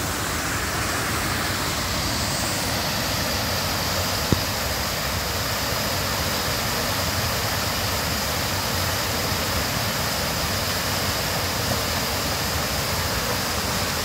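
Rain-swollen forest creek rushing and churning over a small waterfall: a steady, even noise of white water. One short click sounds about four seconds in.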